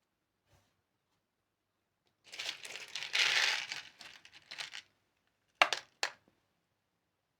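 Handling of an airsoft Makarov PM replica pistol: a couple of seconds of crinkling and rustling, then two sharp clicks about half a second apart.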